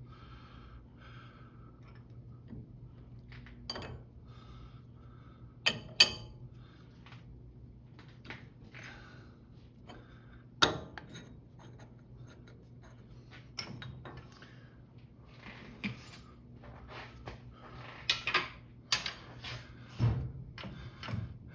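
Metal tools and parts being handled while a workpiece is set up on a metal lathe: scattered clinks, clicks and knocks, the sharpest about six seconds and ten seconds in, over a faint steady hum.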